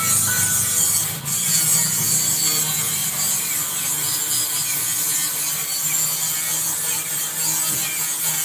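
Steady scraping and rasping of a tool working the steel of a spiral staircase under construction, a continuous hissing metalwork noise without distinct strokes.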